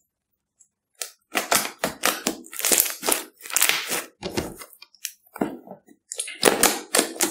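Fluffy slime being squeezed, folded and stretched by hand: an irregular run of squishing, crackling sounds that starts about a second in, eases off briefly a little past the middle and then comes back.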